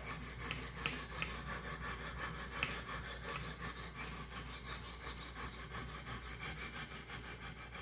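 200-grit diamond stones of a Wicked Edge Gen 4 Pro guided sharpener scrubbing quickly back and forth across a clamped knife's bevel: an even rasping at about four or five strokes a second. The burr from the other side has been smoothed out.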